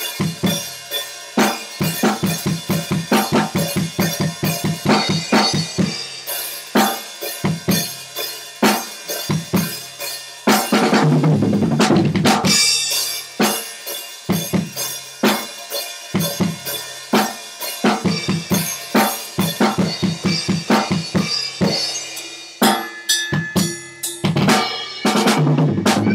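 Acoustic drum kit with a Sonor bass drum played live: a fast, busy groove of kick, snare and cymbals. It breaks into a loud fill with ringing cymbals about eleven seconds in and again near the end.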